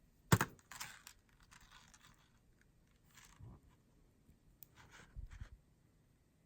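Small pieces of costume and silver jewelry being handled: one sharp click about a third of a second in, then scattered soft rustles and light knocks.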